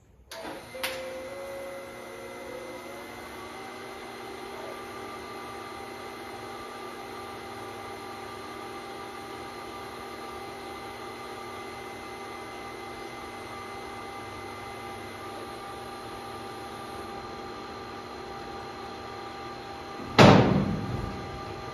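TIG welder humming steadily as a leaking steel gas tank is welded, switching on with a click. A single loud knock near the end.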